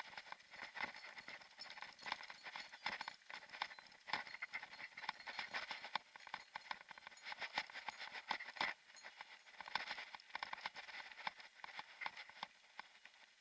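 Mountain bike rolling over a gravel track: the tyres crunch on loose stones and the bike rattles, a dense stream of irregular clicks and knocks.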